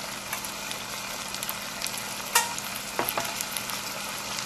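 Vegetables sizzling and crackling in a stainless steel pot on the stove, with a sharp clink about halfway through.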